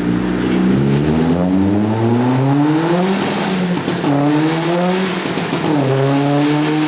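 Turbocharged Ford Focus engine at full throttle, revving up through the gears. The pitch climbs and then drops at gear changes about four and six seconds in, then holds steady, with a high whine rising alongside the revs.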